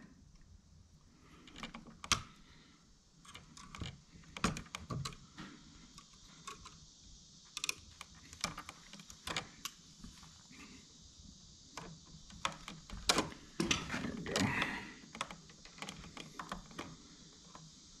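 Irregular light clicks and ticks of pliers and bare copper ground wire being handled as twisted wires are untwisted, with a denser run of clicks about three-quarters of the way through.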